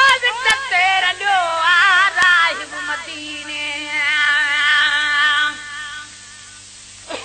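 A man singing a Sindhi naat with a wavering, ornamented melody, ending on a long held note that fades away about six seconds in.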